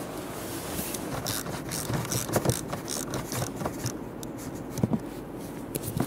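Ratchet with an 8 mm socket loosening a side bolt of the center console: irregular clicking and scraping for a few seconds, with sharper knocks in the middle and a double knock near the end.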